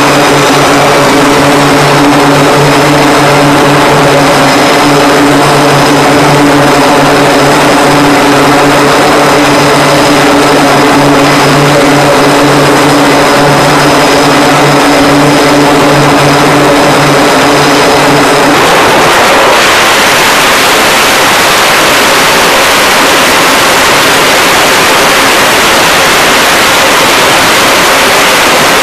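Loud aircraft engine noise on a carrier flight deck: a steady drone with several held tones that, about two-thirds of the way through, gives way to an even, broad jet-engine rush.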